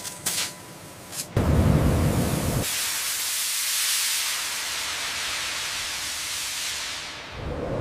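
A loud low noise lasting about a second, then a loud steady hiss of steam as water sprays onto a red-hot steel slab, fading near the end.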